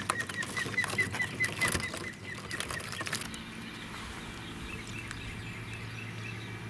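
Blue crabs scrabbling in a wire crab trap, their legs and claws clicking and scraping on the mesh, while a bird calls a fast run of short, high chirps, about four a second. About three seconds in the clicking stops and only a faint, low, steady hum is left.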